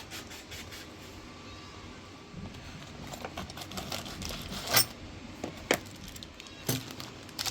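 Light clicks and clinks of CPU air cooler parts being unpacked and handled, with three sharper clicks about five, six and seven seconds in.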